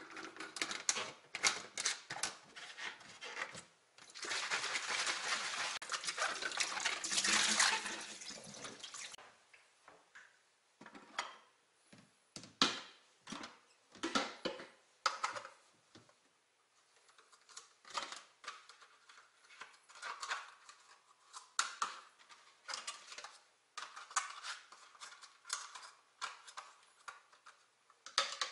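Glass jars and plastic lids clinking and knocking against a stainless steel sink as they are washed by hand, with the tap running for about five seconds a few seconds in. Afterwards, scattered clinks, knocks and small splashes of handling things in the water-filled sink.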